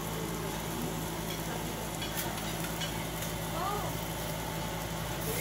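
Marinated meat skewers sizzling on a round wire grill rack over a stovetop burner, with a couple of light clicks as the skewers are turned, over a steady low hum.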